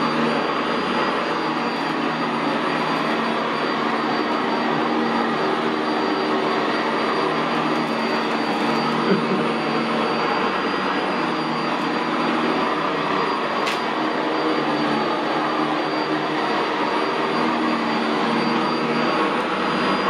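Sanitaire SC679J commercial upright vacuum cleaner running steadily as it is pushed over carpet, its Vibra-Groomer II brush roll sweeping the pile. The motor gives a steady hum with a thin high whine. There is a brief click about nine seconds in.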